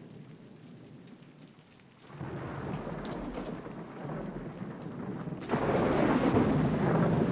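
A rumbling, thunder-like noise with no clear tone on the film soundtrack. It starts about two seconds in and grows much louder a little past halfway.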